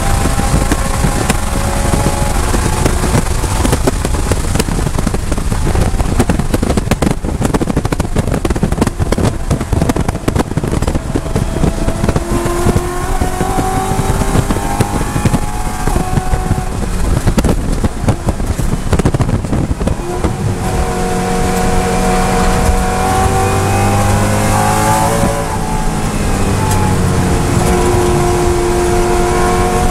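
BMW E92 M3's V8 engine heard from inside the cabin at speed on a race track, at full throttle near redline, with the engine note rising and falling through braking, gear changes and corners. Steady wind and road noise runs underneath.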